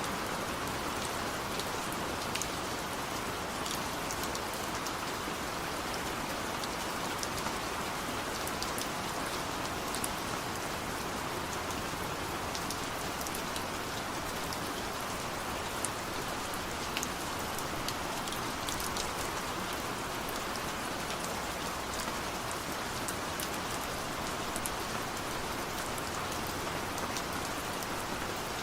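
Heavy rain falling steadily, a dense even hiss with scattered sharp drop ticks on top.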